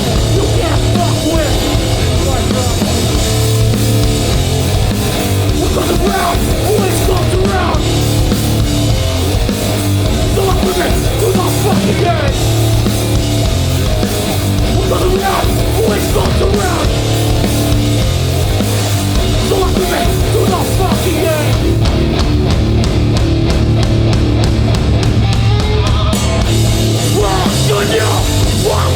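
Hardcore punk band playing live: guitars, bass and drums, loud and dense, with a heavy pulsing low end.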